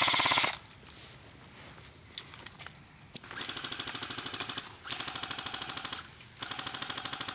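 Airsoft electric rifles firing on full auto: a loud burst cuts off about half a second in. After a pause come three shorter, quieter bursts of rapid, evenly spaced shots.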